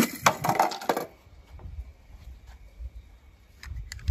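Small die-cast metal toy car rattling down a plastic slide and clacking into plastic balls. This ends about a second in, and faint scattered clicks and taps follow.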